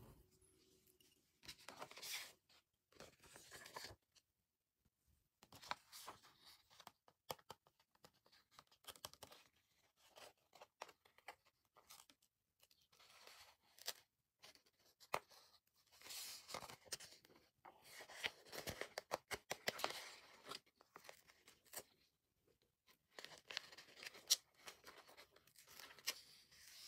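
A paper sticker sheet being handled and stickers peeled off their backing: short bursts of paper rustling and peeling, with small clicks between them.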